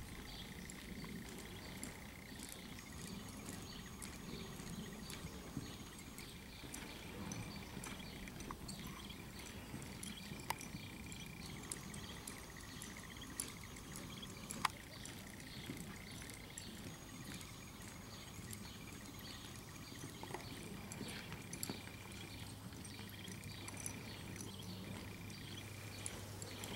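Faint, soft hoofbeats of a ridden horse moving on loose arena dirt, with scattered small clicks over a steady background hiss.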